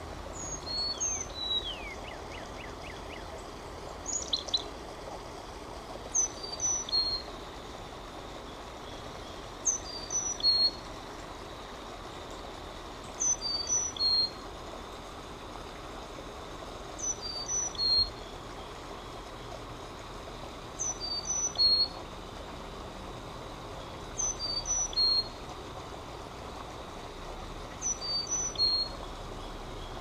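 Carolina chickadee song played through a phone speaker: short high phrases, each pairing a high note with a lower one, repeated about every three and a half seconds.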